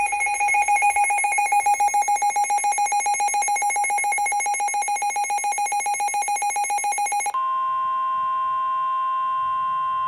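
Weather alert radio sounding a severe thunderstorm warning alarm: a rapid, pulsing beep for about seven seconds, then an abrupt switch to a steady single tone, the NOAA Weather Radio warning alert tone that comes before the spoken warning.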